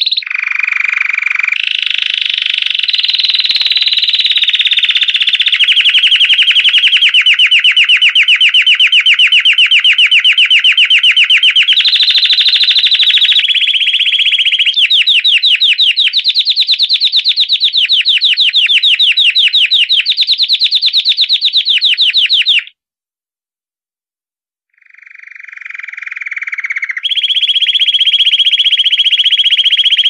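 Domestic canary (canário belga) singing its bell-style 'campainha' song: long phrases of very fast repeated notes, each phrase on a different pitch and rhythm. The song breaks off for about two seconds about three-quarters of the way through, then starts again, swelling back up.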